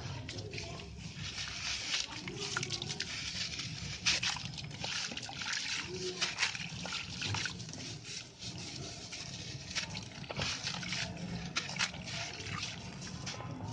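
Sand-cement concrete crumbling and crunching, a dense run of irregular small cracks and gritty crackles with sharper snaps now and then, over a steady low hum.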